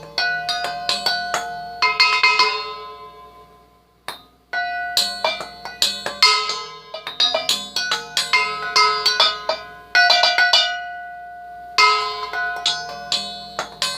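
Mixing bowls struck in quick runs, each strike leaving a bell-like ringing note that fades; a handful of different pitches recur as a made-up tune. Twice the strikes stop and the ringing dies away before the next run.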